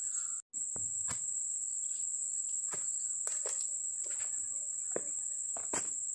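Insects droning steadily at a high pitch, with irregular footsteps crunching on dry leaf litter.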